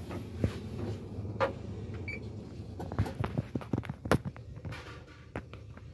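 Steady low machine hum in an excavator cab, with scattered clicks and knocks that bunch up about three to four seconds in; the sharpest comes about four seconds in.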